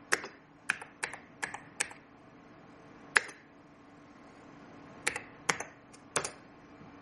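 Keys of a computer keyboard being typed, irregular sharp clicks: a quick run of about five in the first two seconds, a single one near the middle, then three more near the end.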